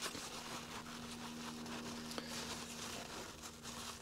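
Faint rustling of blue paper shop roll as a small carburettor main jet is wiped clean in it by hand, with a few small ticks, over a steady low hum.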